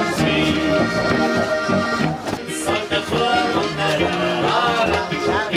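Folk dance music with an accordion carrying the tune, played at a steady dance tempo.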